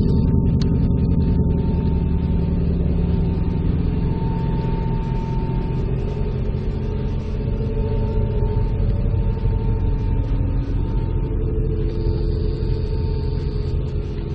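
A deep, steady droning rumble with several held tones above it, one of the unexplained 'strange sounds' people recorded and passed around online.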